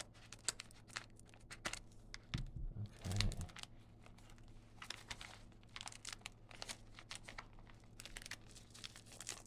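Padded shipping envelopes being handled and opened by hand: irregular crinkling and rustling of the plastic and paper packaging, with some tearing.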